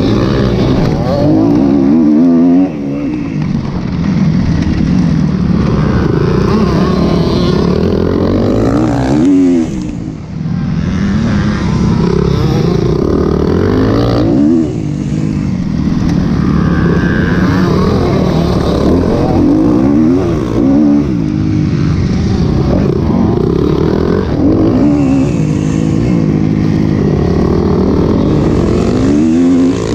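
A 2012 Kawasaki KX250F's single-cylinder four-stroke engine, heard close up from the bike itself, revving hard and backing off over and over as it is ridden through the gears on a motocross track.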